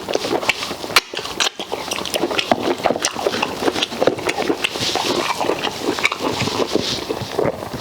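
Close-up eating sounds: a person chewing pork meat and fufu with okra soup, with wet smacking and mouth clicks in a quick, irregular run.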